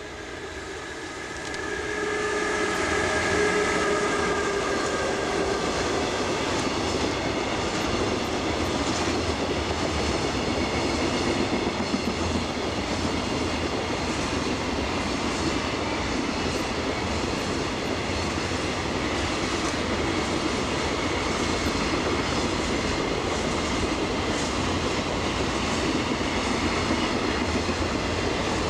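Electric locomotive and a long train of container freight wagons passing close by on the main line: a whine over the first few seconds as the locomotive goes by, then the steady rumble of the wagons with wheels clacking over the rail joints.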